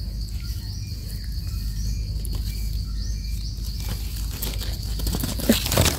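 Soft scraping and rustling of hands digging through loose soil and twigs to pull up termite mushrooms, with a few sharp clicks near the end, over a steady high-pitched insect drone.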